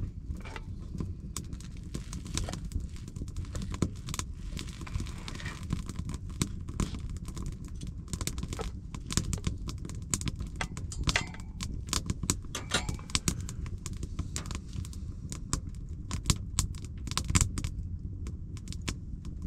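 Wood fire crackling, with sharp irregular pops and snaps over a steady low rumble.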